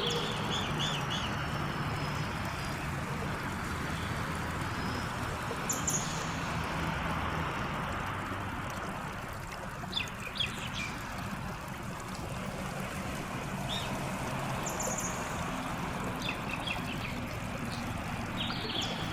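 Steady rush of running water with a few short, high bird chirps scattered through it, over a low steady hum.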